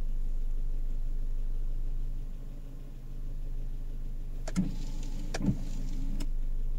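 Car moving slowly in town traffic: a steady low engine and road hum. Near the end come a few sharp clicks and knocks, the two loudest about a second apart.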